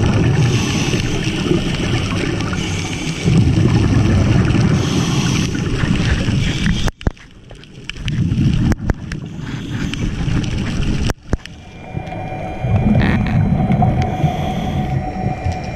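Scuba diver breathing underwater: a gurgling rush of exhaled bubbles swells and fades every four to five seconds. Two sharp clicks break in about 7 and 11 seconds in.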